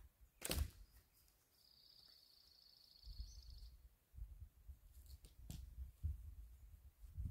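A single sharp knock about half a second in, then a high, even trill for about two seconds. From about three seconds on, a low rumble comes in gusts, with a second knock a little after five seconds.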